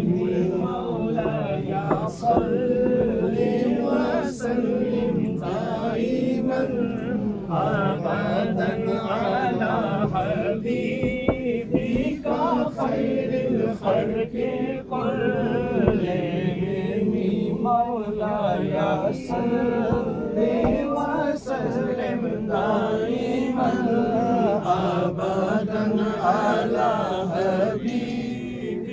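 A group of men's voices chanting together without instruments, one long continuous religious-sounding recitation.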